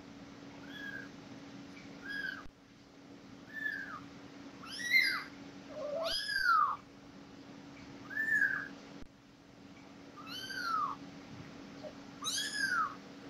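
Newborn kittens mewing: short high-pitched cries that rise and fall in pitch, repeated about every second and a half.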